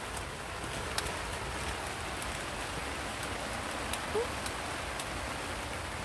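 Steady rain falling, with scattered sharp ticks of individual drops landing close by.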